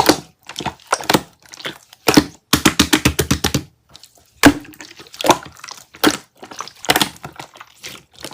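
Slime being squeezed and played with by hand, making a series of sharp crackling clicks and pops, densest from about two and a half to three and a half seconds in.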